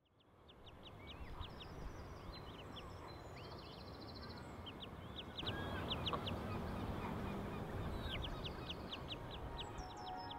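Outdoor ambience fading in: birds chirping in quick runs of short high calls over a low, even rumble. The sound gets a little louder about five and a half seconds in.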